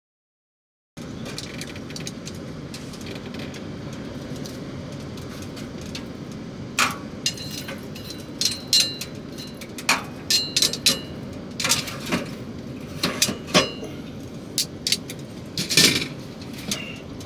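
Metal cookware clinking and knocking, a dozen or so short sharp strikes, some ringing briefly, over a steady hiss.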